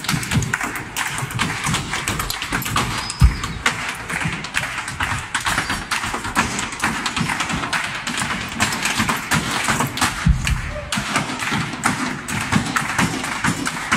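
Ottawa Valley step dancers' hard shoes tapping rapidly on a wooden stage, a dense, continuous run of taps with two heavier stomps, about three seconds in and about ten seconds in.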